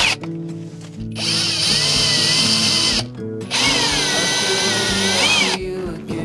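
Power drill driving screws into the van wall in two runs of about two seconds each with a short pause between, the motor's pitch wavering and rising near the end of the second run. Background music plays underneath.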